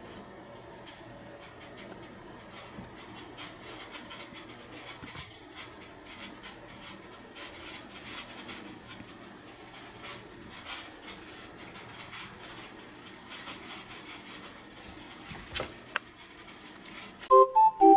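Water heating toward the boil on a room stove: a faint steady hiss with irregular soft crackling and ticking, and a couple of sharper clicks. Gentle melodic music comes in loudly near the end.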